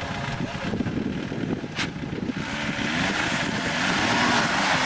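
Off-road vehicle's engine running under load, its pitch rising and falling as it is revved, over a steady hiss, with one sharp click about two seconds in.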